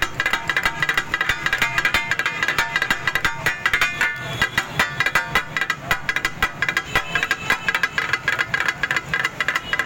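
Metal spatulas clanging rapidly on a steel griddle as taka tak is chopped and stirred: a fast, irregular clatter of ringing metal strikes, about five or six a second.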